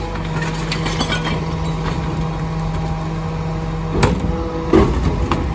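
Rear-loader garbage truck's engine running steadily with a constant hum. Near the end come a few knocks and clatters as a large wheeled bulk bin is handled and rolled away from the bin lifter.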